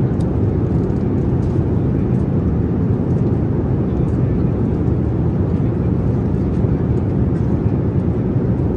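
Steady low rumble of an airliner cabin in flight, engine and airflow noise at an even level throughout.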